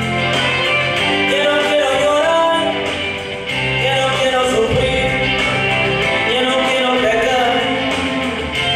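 A man singing a melody into a microphone, with a wavering vibrato on held notes, over an instrumental accompaniment with guitar and a steady bass line.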